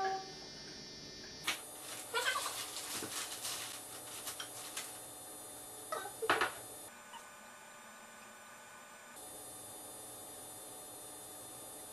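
Spoon clinking and scraping in a mixing bowl during stirring, with scattered knocks and rustles over the first half, then only a steady electrical hum.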